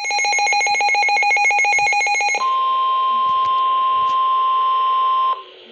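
Weather radio alert: a rapidly trilling electronic beep, about a dozen pulses a second, for about two and a half seconds, then the steady single-pitch NOAA Weather Radio warning alarm tone (1050 Hz) held for about three seconds and cut off abruptly, signalling that a warning follows.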